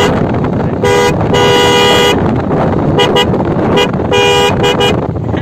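Denso snail-type electric horn pair on a motor scooter honking in two pitches together: a short honk, a long one, two quick taps, another long honk and two more quick taps, over steady background noise.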